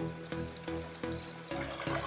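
Background music with a steady beat, about three notes a second, each note struck and held with a clear pitch.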